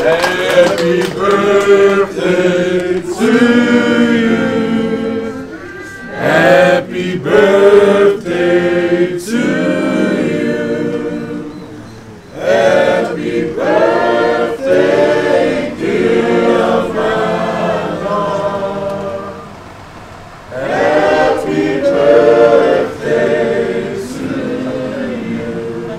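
A group of voices singing together unaccompanied, like a choir, in phrases separated by short breaks.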